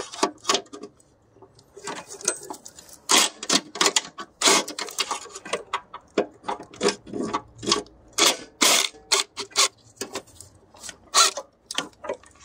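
Ratchet wrench clicking in quick, irregular bursts as it undoes the engine computer's mounting bolts.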